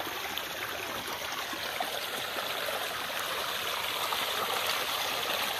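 Water running steadily, a constant rushing sound with no breaks.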